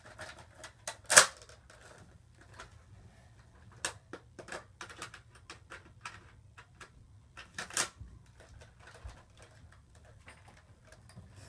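Plastic clicks and clacks of a Nerf blaster being handled and loaded, with a sharp loud clack about a second in and another near the end.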